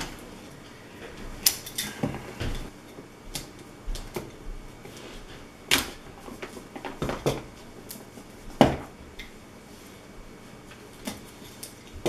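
A small cardboard box being handled and its seal cut with a knife: scattered light clicks and taps. Three sharper clicks stand out, about a second and a half in, near the middle, and about eight and a half seconds in.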